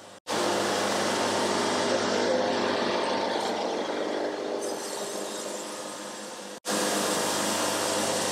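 Wood-Mizer LT70 band sawmill running on its diesel engine, sawing through a log: a steady mechanical drone with a hissing cut. It breaks off to silence for a moment just after the start and again about two-thirds of the way through, where the clips are spliced.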